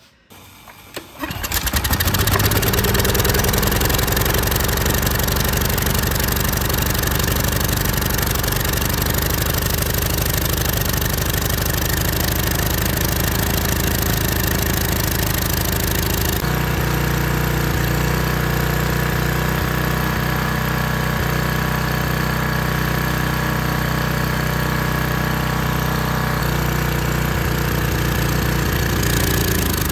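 Troy-Bilt 2800 PSI pressure washer's small gas engine running steadily with water through the pump, starting to sound about a second and a half in. Its tone shifts about halfway through.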